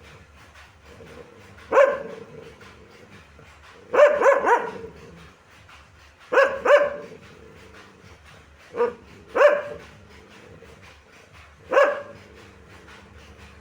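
Dog barking in short single barks and pairs, one group every two to three seconds.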